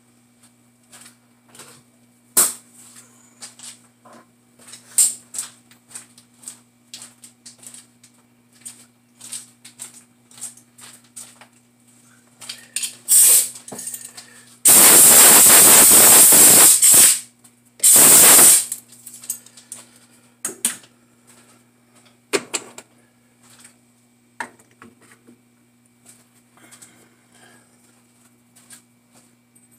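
Scattered light metal clicks and knocks as a tool holder is handled and taken off a metal lathe's toolpost, over a steady low hum. About halfway there are two loud hissing blasts, the first about two seconds long, the second, a second later, under a second.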